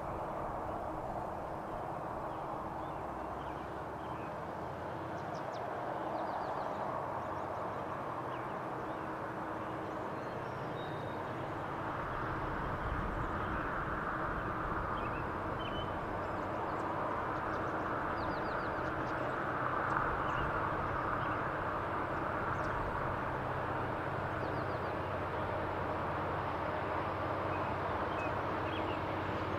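Distant drone of EMD diesel locomotives working upgrade, a steady low hum slowly getting louder as the train approaches. Small birds chirp now and then over it.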